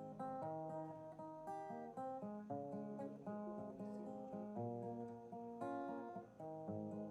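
Background music: acoustic guitar playing a plucked and strummed tune with changing chords.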